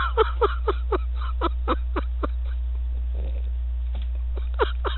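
A person laughing in a run of short 'ha' pulses that tail off about two seconds in, with a lone laugh near the end, over a steady low electrical hum.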